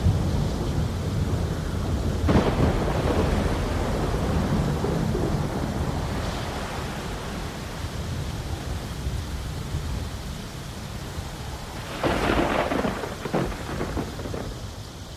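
Low rumbling with a steady rushing hiss, like a thunderstorm in the rain. There are louder crashes about two seconds in and again about twelve seconds in, and the sound fades away near the end.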